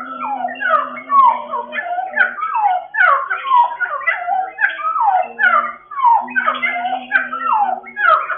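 Cucak timur songbird singing a continuous, rapid string of slurred, falling whistled notes, about two a second, with no break: the unbroken 'ngeropel' style of song.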